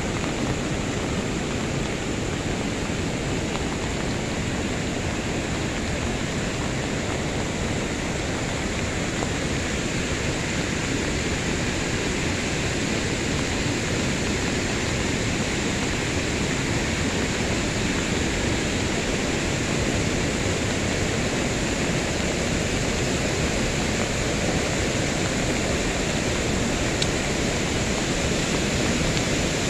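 Steady rushing noise of water from heavy rain and a river swollen by it, growing slightly louder near the end.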